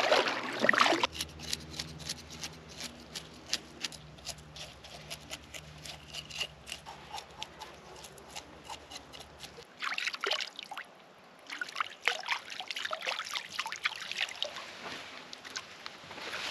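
Kayak paddling on a lake: water trickling and dripping off the paddle, with irregular small splashes and louder wash at a couple of strokes.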